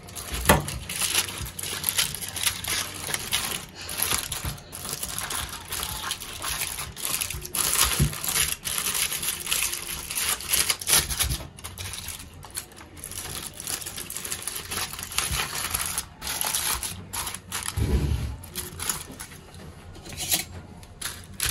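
Aluminium foil crinkling and rustling as a foil-wrapped package is pulled open by hand, with a few low thumps of handling against the plate and table.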